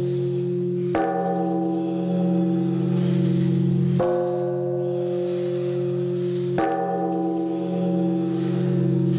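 Large hanging temple bell struck with a swung wooden log striker three times, about every two and a half to three seconds. Each stroke gives a sharp hit and then a long, steady ringing hum that is still sounding when the next stroke lands.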